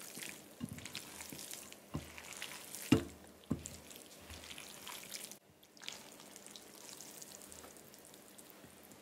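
Cold cappellini being tossed with diced tomatoes, basil and olive-oil dressing in a glass bowl with silicone tongs: wet squishing and slapping of the dressed pasta, with a few sharp knocks of the tongs against the bowl, the loudest about three seconds in. After a short break about halfway, quieter wet sounds as the pasta is lifted from the bowl.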